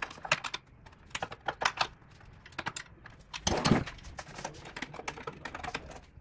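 Crosshead screwdriver clicking and tapping against small screws in a Thinkrider X7 trainer's plastic housing as they are worked loose, in quick irregular clicks. A louder handling noise comes about three and a half seconds in.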